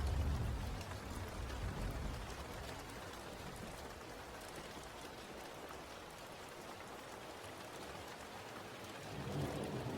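Steady rain falling. A low rumble of thunder dies away over the first couple of seconds, and another starts to build near the end.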